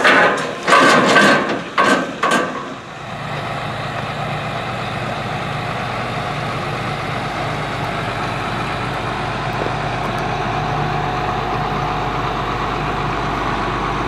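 Metal clanks and rattles as the swing-down steel access ladder of a John Deere S790 combine is lowered. About three seconds in, these give way to a heavy diesel engine idling steadily.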